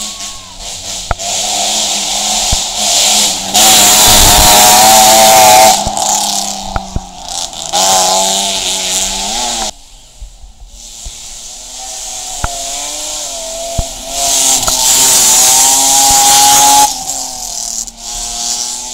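Rally cars passing at speed, engines revving hard, the pitch rising and falling through the gears. The loudest stretches are a few seconds in and again a few seconds before the end. The sound cuts off suddenly twice.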